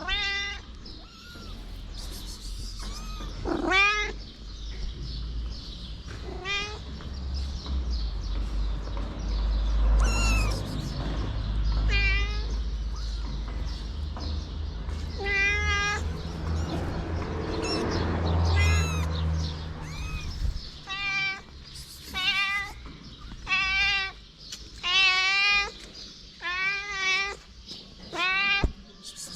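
Kittens mewing over and over in short, high, wavering calls, which come about once a second in the last third. A low rumble runs underneath through the middle stretch.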